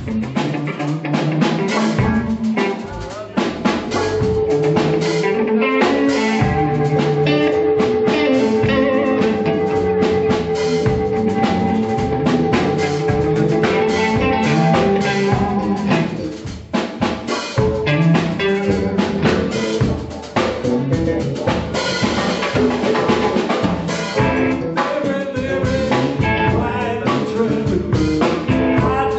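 Live blues band playing an instrumental passage on electric guitar, bass, keyboard and drum kit. A long held note sustains over the drums from about four seconds in to about fifteen seconds.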